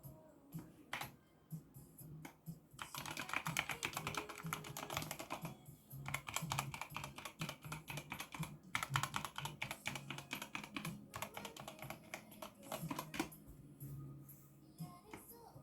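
Typing on an ABKO AN02 mechanical keyboard with red linear switches: a few single keystrokes, then fast runs of clicking keys from about three seconds in, with short pauses, thinning out near the end.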